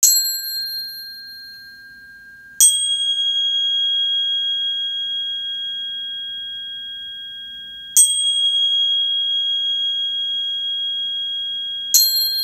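A high, bell-like metal chime struck four times: at the start, about two and a half seconds in, about eight seconds in and near the end. Each stroke rings on as several clear tones that fade slowly.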